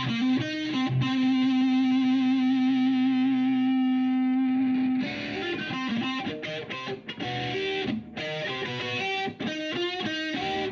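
Isolated electric guitar with distortion: a single note held for about five seconds with vibrato, then a quick run of short, separate notes.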